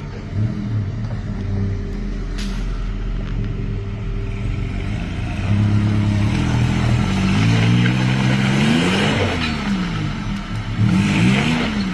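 Straight-axle Toyota crawler's engine revving hard in repeated rises and falls as it climbs out of a mud hole. The loudest run of revs is about two thirds of the way through, with another shorter one near the end.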